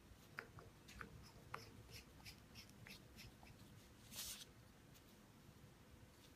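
Faint clicks and light taps from handling an aluminium clutch pencil, with a short scrape about four seconds in.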